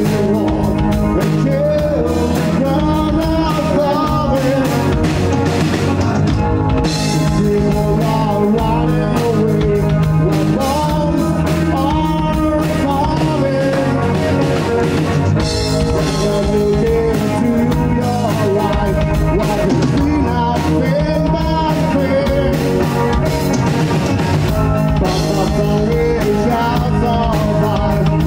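Rock band playing live, with electric guitar, bass guitar and a Pearl drum kit, and a male voice singing lead over it.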